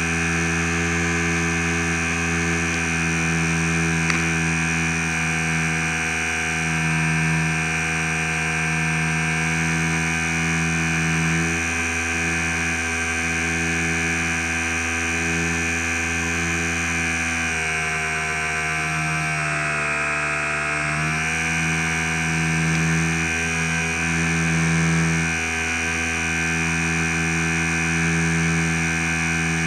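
Onboard sound of a HobbyZone Super Cub's electric motor and propeller in flight: a steady, high, buzzing whine. The pitch dips briefly about two-thirds of the way through as the throttle is eased, then comes back up.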